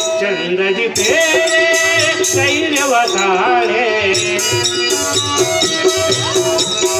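Instrumental accompaniment of a bayalata folk-theatre performance: a steady drone note, a wavering melody over it, and percussion strokes keeping a beat.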